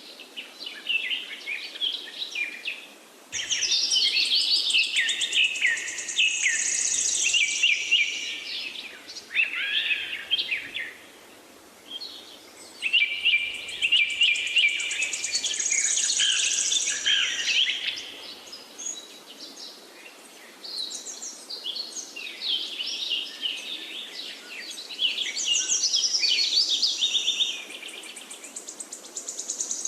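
Songbirds singing: long, varied runs of quick, high chirps and trills, in several phrases with short quieter gaps between them, over a faint steady background hiss.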